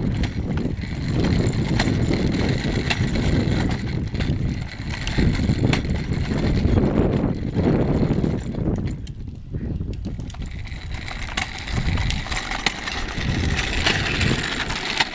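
A child's tricycle with hard plastic wheels rolling over a concrete sidewalk: a continuous uneven rumble that swells and dips, with scattered clicks and rattles.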